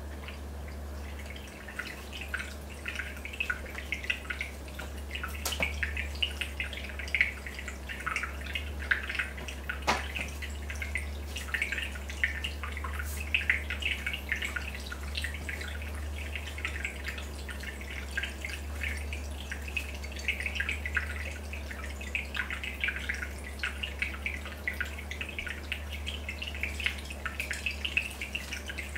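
Aquarium water bubbling and dripping: a dense, irregular patter of small pops and drips from the rising air bubbles, setting in about a second in, over a steady low hum. Two sharp clicks stand out, around five and ten seconds in.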